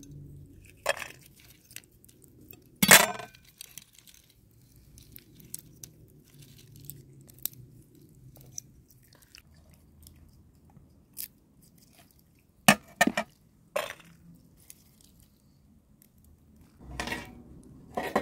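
Knife tapping and scraping against a metal tray while a fish is cleaned, with scattered sharp clinks, the loudest about three seconds in and a quick cluster past the middle. A longer rustling scrape comes near the end.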